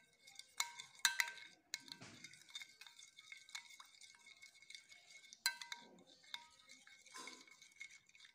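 A spoon stirring a thick cream-and-yogurt marinade in a glass bowl, with a soft wet stirring noise and irregular clinks of the spoon against the glass that ring briefly. The loudest clinks come about a second in and about five and a half seconds in.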